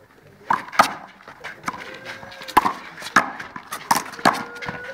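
Handball rally: sharp smacks of a hand striking the ball and the ball hitting the concrete wall. About seven come in quick, uneven succession.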